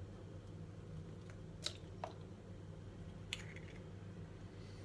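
Eggshells being tapped and cracked against the rim of a plastic mixing bowl: three separate sharp clicks, the last about three seconds in.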